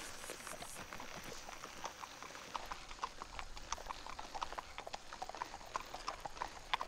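Hooves of two horses clip-clopping at a walk, an irregular patter of hoofbeats that grows clearer and more frequent from a couple of seconds in.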